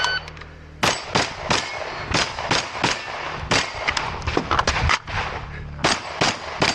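A shot timer beeps once at the start, then a string of rapid gunshots from a competitor shooting a practical shooting stage: about fourteen shots in quick groups of two to four, with brief pauses between the groups.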